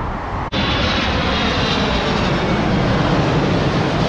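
Loud, steady engine roar of an aircraft, starting abruptly about half a second in.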